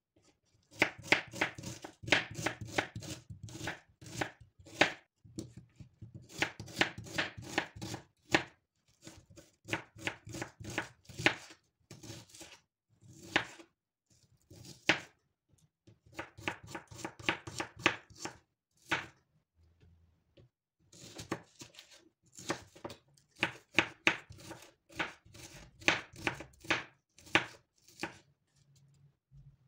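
Knife chopping on a cutting board: quick, sharp strokes in bursts of a few seconds, with short pauses between bursts.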